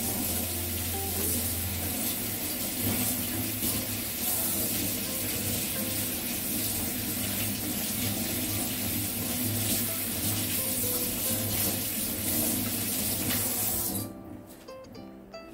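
Kitchen faucet running steadily while pork chops are rinsed by hand under the stream. The water is turned off near the end.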